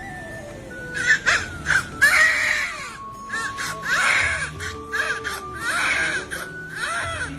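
Newborn baby crying in repeated short wails, over background music.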